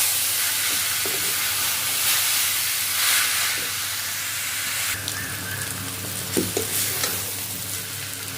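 Grated raw turmeric and chopped dried dates sizzling as they fry in oil in a pan, with a spoon stirring through them now and then. The sizzle drops a little in level about five seconds in.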